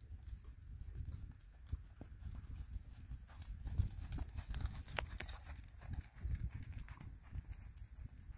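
A horse's hooves thudding on sand arena footing at a trot, a run of soft, repeated hoofbeats that get louder around the middle as the horse passes close by.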